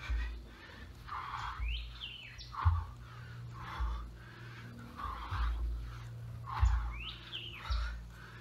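Songbirds chirping and calling, with a short whistled phrase that sweeps up and back down heard twice, over a few dull low thumps.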